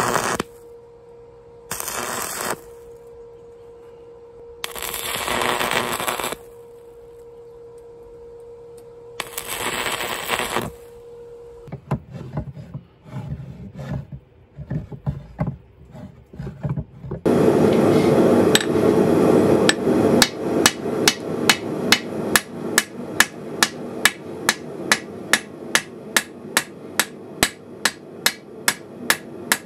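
A few short bursts of stick-welding arc crackle over a steady hum, then scattered small clicks. About 17 seconds in, a blacksmith's hammer starts striking hot steel on an anvil, settling into a steady rhythm of about two blows a second.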